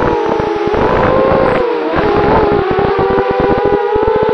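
Eachine Falcon 250 quadcopter's brushless motors and propellers whining in fast flight, heard from its onboard camera. The pitch dips briefly a little under two seconds in, then climbs back as the throttle comes up, with a rough crackle beneath the whine.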